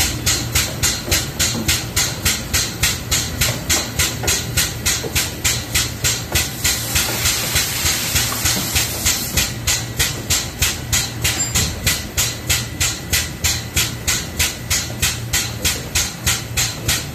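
Chip-and-coolant vacuum, run without electric power, sucking coolant and machining chips through its hose out of a CNC machine's coolant tank: an evenly pulsing hiss, about three or four pulses a second, over a low hum, with a stronger hiss for a couple of seconds midway.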